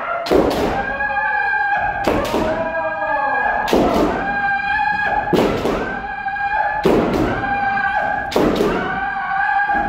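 Kendo kote-men strikes repeated about every one and a half seconds, six times: each a quick double smack of bamboo shinai on armour with a stamping footfall on the wooden floor, followed by a long held kiai shout.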